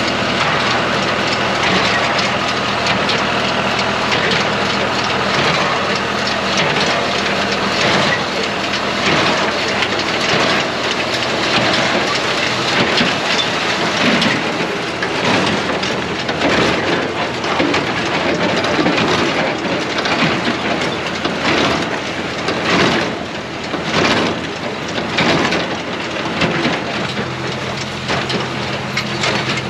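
A John Deere 24T square baler working hay behind a running tractor: a steady engine tone under a dense rattling noise, with sharper knocks in the second half.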